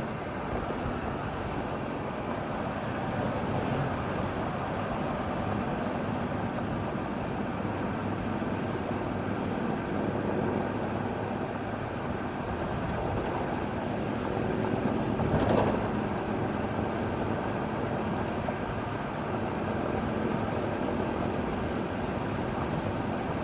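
Steady rush of vehicles travelling at highway speed, engines with tyre and wind noise, from a pack of motorcycles and the traffic around them. A brief louder swell about fifteen seconds in.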